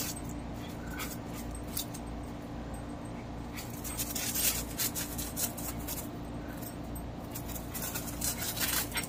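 Small dog rustling and scratching in gravel and a shrub as it noses after a rabbit, in short bursts about four seconds in and again near the end, over a steady low hum.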